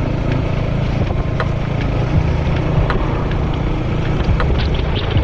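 Royal Enfield Hunter 350's single-cylinder engine running steadily while riding, with wind rushing past the microphone.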